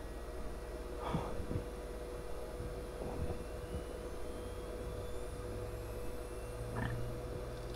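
ARAID 3500 backup drive unit running with its replacement ARCTIC F8 Silent fan, just powered up: a steady hum with a thin steady whine, and a few soft clicks, about a second in and again near the end.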